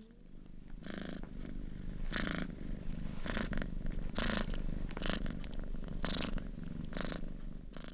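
A sleeping cat snoring: a steady low rumble with a breathy rasp on each breath, about once a second, growing louder over the first two seconds.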